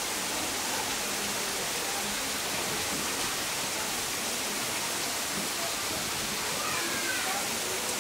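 Steady rush of flowing water in the elephants' pool, with faint distant voices and a couple of short falling chirps about seven seconds in.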